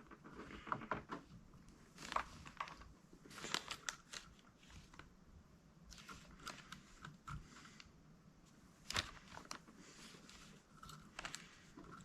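Faint, scattered clicks and light taps of small metal parts being handled: VW rocker arms, washers and support blocks being fitted onto a rocker shaft.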